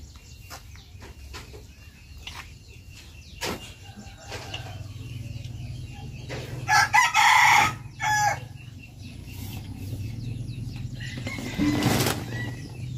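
A rooster crows once, about seven seconds in, lasting about a second, with a shorter call just after. Light clicks and rustles run throughout, and a louder knock and call come near the end.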